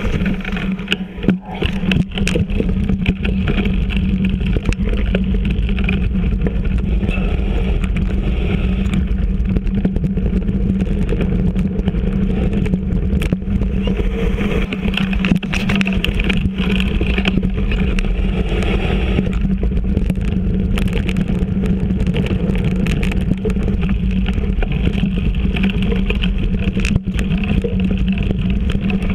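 Mountain bike riding over a rough dirt trail covered in dry leaves, heard from a camera mounted on the bike: a steady rumble of the tyres rolling and the frame rattling, with many small knocks as the wheels hit roots and rocks.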